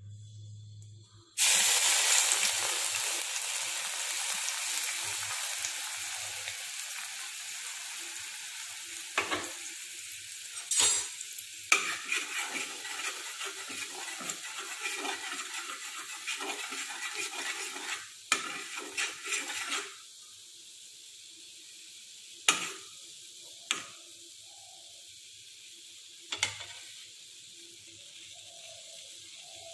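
Milk poured into a hot, ghee-greased wok sizzles loudly, starting suddenly and slowly dying down to a quieter bubbling simmer as the milk boils and reduces. A spoon scrapes and knocks against the pan every few seconds while stirring.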